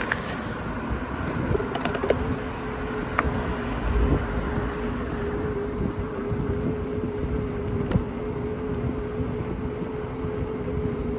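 Wind rumbling on the microphone while riding a bicycle along a paved trail. A steady hum comes in about a second and a half in and holds, with a few sharp clicks just after.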